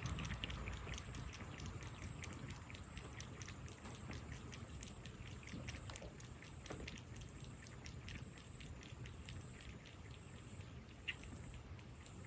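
A cat eating: many faint, irregular small clicks and wet mouth sounds, with one sharper click about eleven seconds in, over a steady low rumble.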